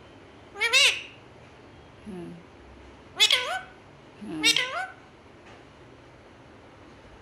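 Male rose-ringed (Indian ringneck) parakeet calling out for its owner with three loud calls, each rising and falling in pitch: about a second in, and twice more around three and four and a half seconds in.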